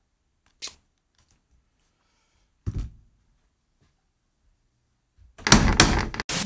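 A flat-screen TV being handled on a table: a light click, then a dull thump, then a loud burst of crackling noise with sharp clicks near the end.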